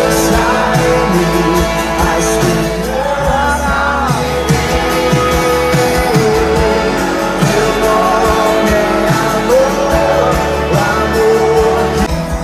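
Live worship music from a stadium sound system: a male singer holding long, wavering notes over acoustic guitar and band, heard from within the crowd.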